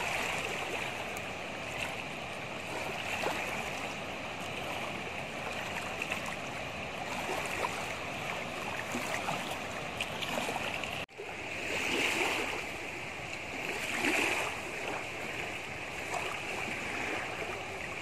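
Steady rushing of a flowing river, with a brief dropout in the sound a little past the middle.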